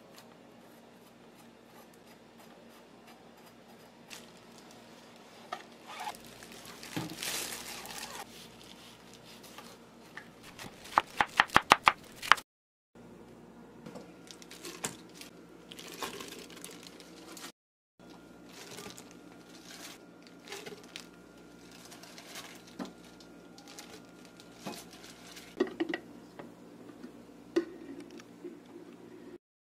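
Kitchen food-prep handling sounds: a knife tip scraping and picking seeds out of a watermelon slice on a wooden cutting board, and a quick run of about eight sharp knocks about halfway through. Later come scattered light taps and clinks as watermelon goes into a glass blender jar and a spoon works in a glass jar of honey.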